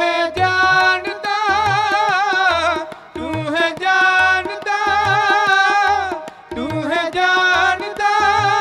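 Sikh shabad kirtan: a singer draws out long, wavering melismatic phrases of the verse, with tabla strokes keeping a steady beat underneath.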